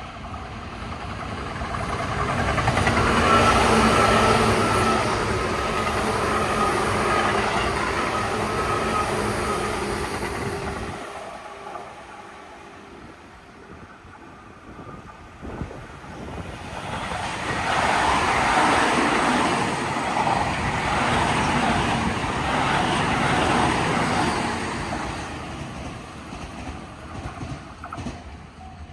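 Two trains passing by in turn. The first swells up within a few seconds and fades away by about ten seconds in. After a short lull a second train builds up and runs by for several seconds before dying away near the end.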